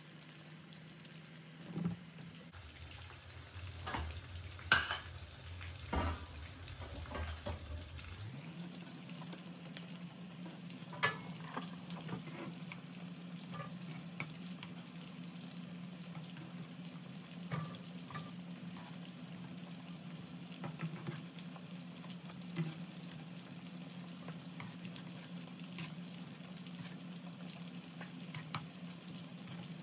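Tuna kebabs shallow-frying in oil in a non-stick frying pan: a steady sizzle, with sharp clicks and taps of a metal fork and tongs against the pan as the kebabs are turned and lifted out. The loudest click comes about five seconds in. A low steady hum runs under the sizzle from about eight seconds on.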